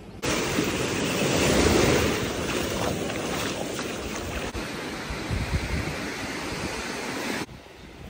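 Sea surf washing on a beach, with wind buffeting the microphone. The sound starts abruptly just after the beginning and cuts off abruptly near the end.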